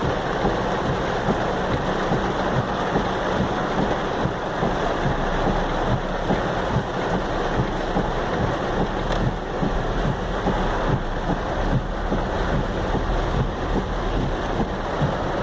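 Torrential rain pouring steadily, with many close, irregular drop hits.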